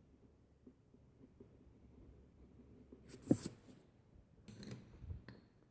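Soft scratching of a coloured pencil on paper, with a louder brief scuffing sound about three seconds in and more scratching near the end.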